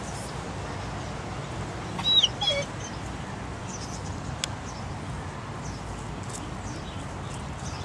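A short, high animal call about two seconds in, falling in pitch, over a steady low background noise.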